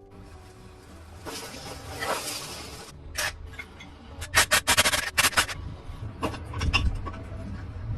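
Hand work on an old motorcycle in the workshop: a rough scraping for a couple of seconds, then a quick run of sharp clicks and knocks, with a few more scattered knocks near the end.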